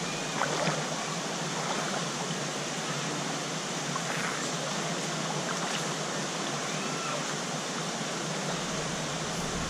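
Shallow stream running over rocks: a steady rush of flowing water, close to the microphone.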